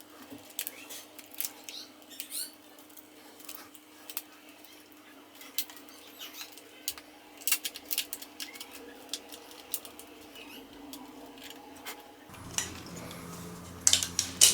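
Irregular plastic clicks and snaps from a TV remote control's plastic case being pried apart, with a cluster of louder snaps near the end as the case gives way and cracks a little.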